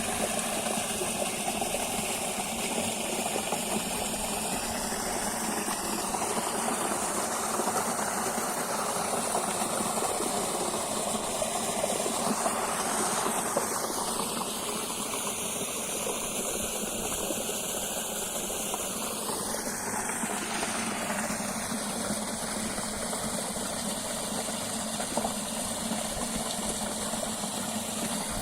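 Running water rushing steadily, its tone shifting slowly in the middle.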